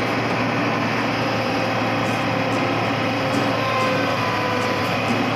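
Steady, even machine noise, engines running without change.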